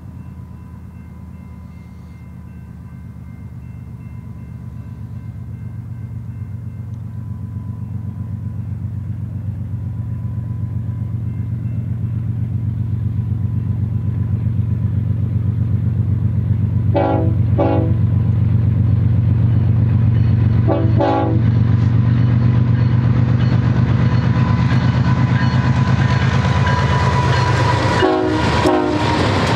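BNSF ES44C4 diesel locomotive's GE V12 engine running under power, its low rumble building steadily as it approaches and passes. Short horn blasts sound twice about halfway through and again near the end. The empty well cars then roll by with a rising rail clatter.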